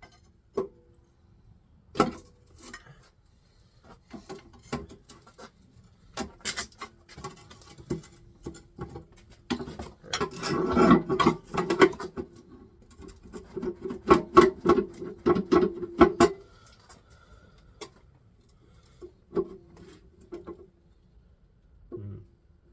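Hand tools clicking and clanking against the metal parts of a small-block Chevy V8 under teardown: scattered single knocks, with two stretches of rapid clicking and rattling near the middle.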